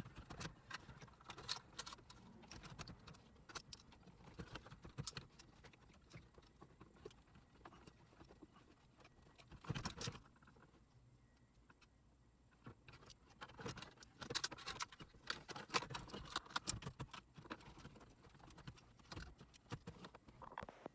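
Faint rustling and small plastic clicks and knocks of wiring harnesses and connectors being pushed and tucked behind a truck's dash trim, with a louder cluster of knocks about halfway through and a busier run of handling a few seconds later.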